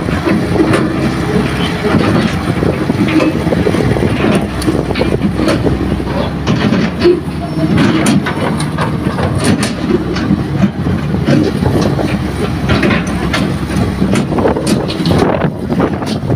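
Excavator's diesel engine running under load while it digs and loads soil, with repeated knocks and clatter from the bucket and falling earth.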